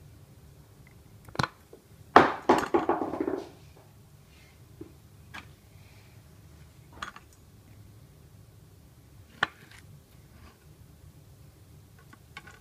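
Kitchen knife work on an avocado pit: a sharp knock as the blade strikes the pit, then about a second of quick clattering knocks with ringing as the pit is knocked off the blade. A few lighter single knocks and taps on the cutting board follow.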